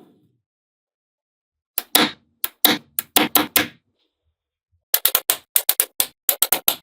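Small magnetic balls clicking sharply as they snap together: about eight clicks, a pause, then a quicker run of clicks.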